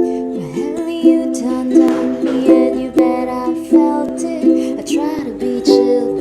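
UKA UK-23 ukulele strummed, a run of chords that changes every half second or so.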